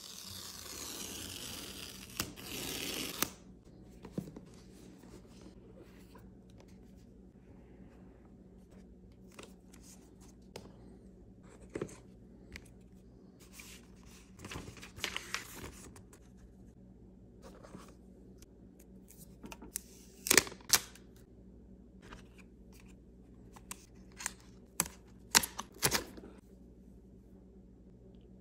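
Paper tear strip being pulled off a MacBook Pro box, a tearing hiss lasting about three seconds. Then come scattered clicks, taps and paper rustles as the cardboard packaging, the paper sleeve and the power adapter and cable are handled, the loudest run of clicks coming in the second half.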